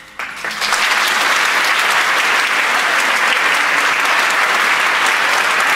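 Audience applause breaking out as the piece ends, swelling within the first second into steady, dense clapping.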